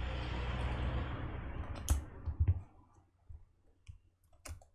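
Handling noise from prying at a laptop's metal keyboard backing plate: a rustling scrape for about two and a half seconds, then two sharp clicks and a few faint ticks. The plate is still partly held on.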